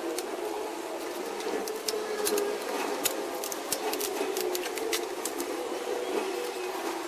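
Workshop sounds played back at eight times speed: a fast, busy clatter of clicks and taps as a motorcycle's rear wheel is refitted and its chain and sprocket handled.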